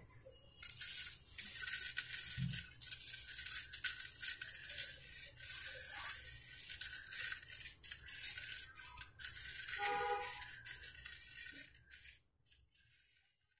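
Faint outro music, mostly a soft hissy rustling texture with a brief chord about ten seconds in, ending about twelve seconds in.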